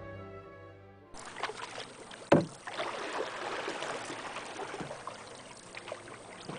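Orchestral music ends about a second in, then a canoe being paddled: water splashing and swishing around the paddle and hull, with one sharp knock a little over two seconds in.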